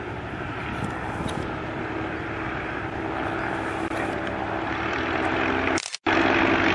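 Propeller engines of three vintage Curtiss airplanes, including the JN-4H Jenny biplane, droning steadily as they pass overhead together, growing a little louder. The sound cuts out for a moment near the end, then comes back louder.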